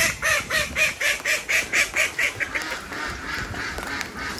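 A duck quacking in a rapid run of about four quacks a second, loudest at first and fading away over the second half.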